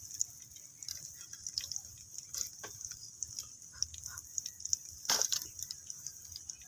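Serrated knife sawing through a crispy breaded chicken fillet on a ceramic plate: scattered small crunches and clicks, with one louder crunch about five seconds in.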